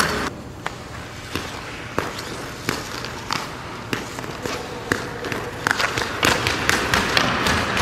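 Hockey skates carving and scraping across rink ice, with irregular sharp clicks and knocks of the blades and the stick striking the ice.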